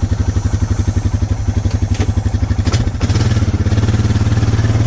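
A 2008 Honda Rancher ATV's single-cylinder engine idling with an even, fast putter, freshly started. About three seconds in there is a short click, then the engine gets louder and steadier.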